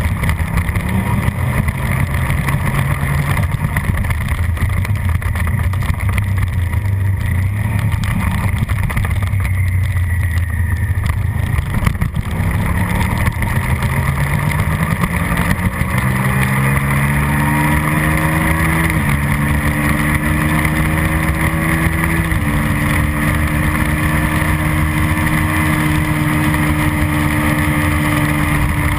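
Suzuki SV650 V-twin race engine under heavy wind rush, accelerating hard: revs climb steadily, drop at two upshifts in the second half, then hold high at full throttle.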